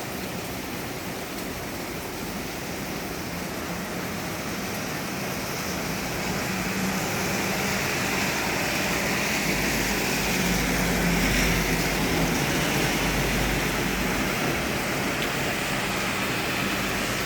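Steady rushing of rain, growing louder partway through, with a low rumble for several seconds in the middle.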